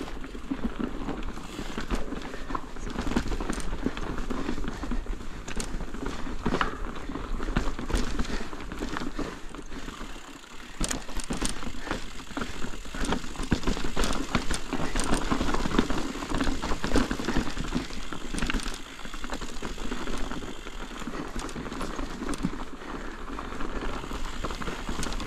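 Ibis Ripmo full-suspension mountain bike riding fast down a rocky trail strewn with loose rocks, its tyres crunching and the bike rattling, with many short knocks and clicks over the chunk.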